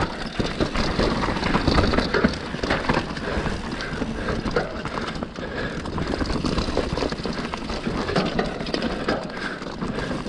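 Mountain bike riding a rough forest trail: tyres running over dirt and rocks, with a steady rush of noise and a constant run of knocks and rattles from the bike over the bumps.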